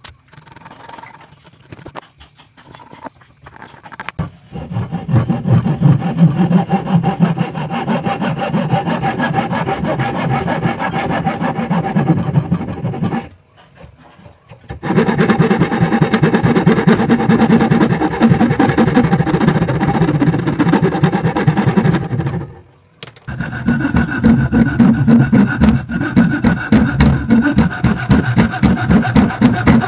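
Hand saw cutting through a wooden block with quick back-and-forth strokes, in three bouts separated by short pauses.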